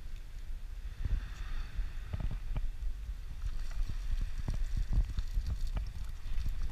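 Wind buffeting the microphone as a steady low rumble, with irregular short knocks and rattles from about a second in as a cast net is hauled up out of the sea by its rope.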